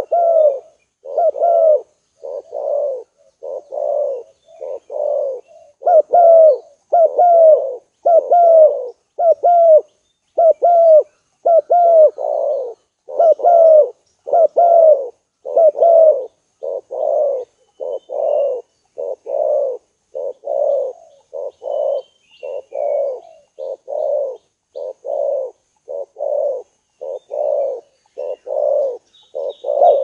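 Spotted dove cooing: a loud, steady run of low coos repeated in quick succession without a pause.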